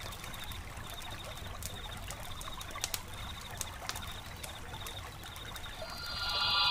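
Faint outdoor ambience: a low rumble with a thin high chirp repeating every half second or so and a few scattered clicks, faintly like trickling water. Music fades in near the end.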